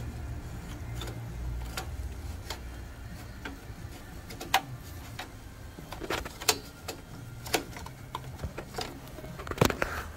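Irregular small clicks and taps of a plastic paper-guide part being pushed and seated by hand in the printer's metal frame, with a sharper knock near the end, over a low steady hum.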